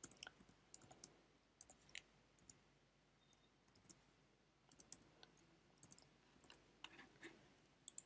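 Faint, irregular clicks of typing on a computer keyboard, thinning out for a second or two midway.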